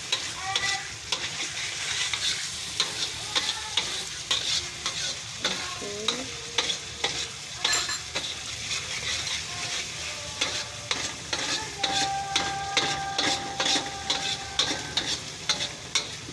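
Chopped onions sizzling in hot oil in a pan as they are stirred, with frequent short scraping clicks from the utensil. The onions are just starting to turn brown.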